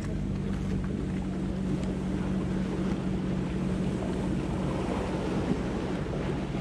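Steady low engine drone, with wind noise on the microphone.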